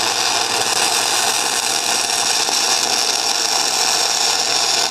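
Electric welding arc on steel, burning steadily as a weld bead is laid along a steel sprocket, then stopping abruptly right at the end.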